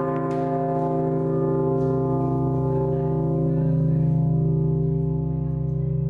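The Pummerin, the great bell of St. Stephen's Cathedral in Vienna, ringing on with a deep hum and many overtones sounding together, heard from right beneath the bell. Some of the tones swell and fade slowly.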